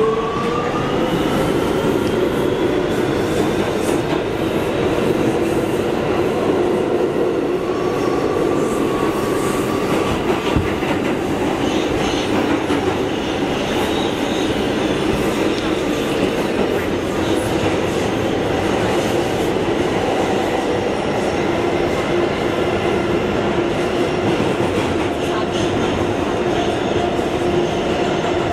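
Kawasaki R211T subway train running, heard from inside the car at the open gangway: a steady rumble and clatter of wheels on rail under a motor whine that rises in pitch over the first couple of seconds as the train picks up speed, then holds steady.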